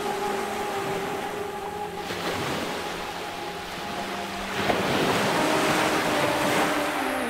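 Wind rushing over the microphone of a camera carried at a gallop, mixed with surf breaking on the beach. The rush swells louder about four and a half seconds in.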